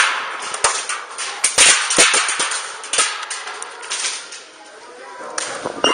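Airsoft guns firing: a string of sharp, irregular cracks, the loudest right at the start, over a rustling hiss.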